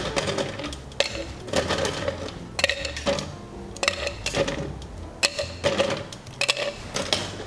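Ice cubes and a metal bar tool clinking against stainless steel shaker tins in a run of irregular sharp clinks, over soft background music.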